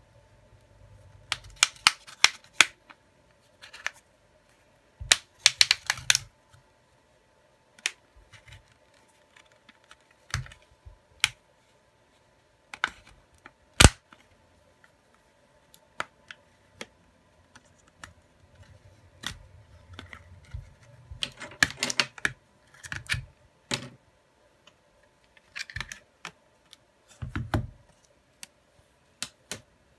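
Plastic back cover of a Xiaomi Redmi 9A/9C being pried off its frame with an opening pick: irregular clusters of small, sharp plastic clicks and snaps as the clips release, with one loudest single snap about halfway through.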